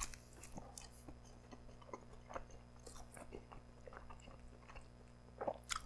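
A bite into a slice of double-crust stuffed pizza, then chewing with the mouth close to the microphone: faint, scattered small clicks and wet mouth sounds, with a slightly louder cluster near the end.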